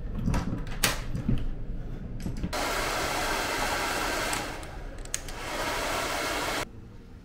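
Hand-held hair dryer blowing with a steady rush of air for about four seconds, dipping briefly midway and cutting off suddenly near the end as it is switched off. Before it starts, a few clicks and knocks.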